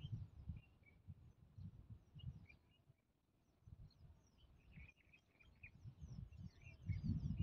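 Small birds chirping and twittering in short, scattered calls, over low gusts of wind on the microphone that die away around the middle and build again near the end.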